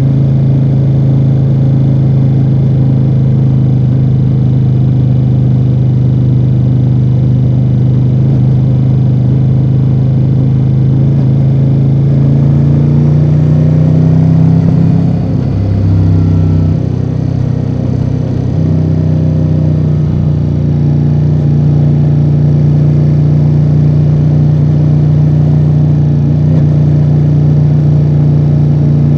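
2024 Ducati Multistrada V4 Rally's 1158 cc V4 engine through its stock exhaust, running steadily under way. About halfway the revs climb a little, then drop away for a few seconds before settling back to a steady cruise.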